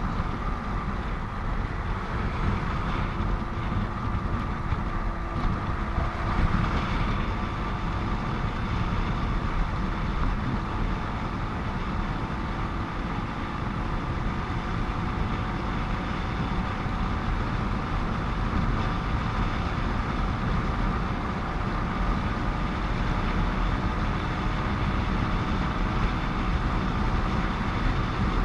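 Steady road and traffic noise from a motorcycle ride on a busy highway: the engine, tyres and a dense low rumble, with heavy vehicles around.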